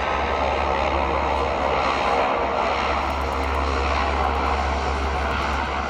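Jet airliner engines running: a steady rushing noise that swells slightly about two seconds in.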